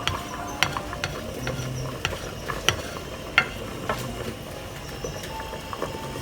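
A cooking utensil stirring and scraping in a pot of vegetables and potatoes in broth, with about half a dozen sharp, separate clinks against the pot over a low steady hiss.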